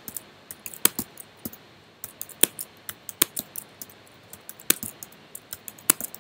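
Typing on a computer keyboard: irregular single keystrokes and short runs of keys with brief pauses between them.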